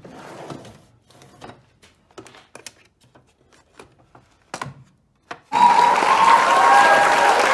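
Handling of a metal tool-chest drawer and a hinged case: scattered light clicks and knocks. About five and a half seconds in, loud applause starts suddenly and carries on.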